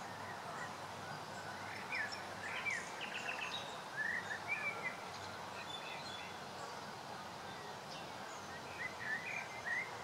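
Common nightingale singing: a run of short, quickly changing phrases from about two seconds in, and another near the end, over a steady background noise.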